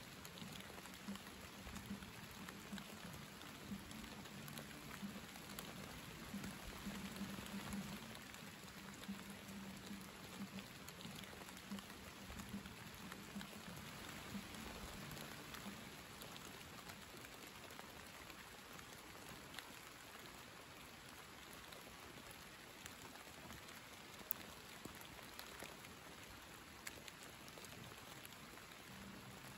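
Steady light rain falling, a soft even patter of drops, with a faint low hum underneath that fades out about halfway through.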